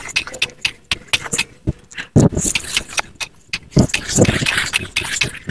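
Hoe scraping and chopping into soil, pulling earth over a fresh heap of animal manure to bury it: irregular scrapes and ticks, with a few heavier thuds in the middle.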